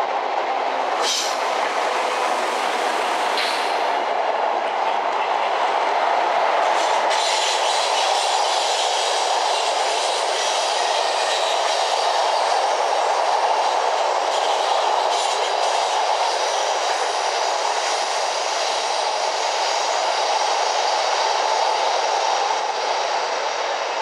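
Electric passenger trains rolling past close by: a steady rumble of wheels on rail, with a few sharp clacks over rail joints. The Benelux intercity's ICR coaches pass alongside, and the double-deck DDAR train comes in on the other track.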